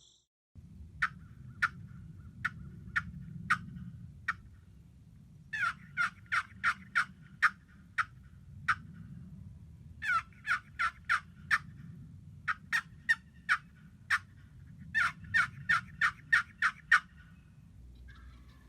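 Turkey yelping: several runs of short, sharp yelps, some single and spaced, others in quick strings of six to eight, over a steady low background noise.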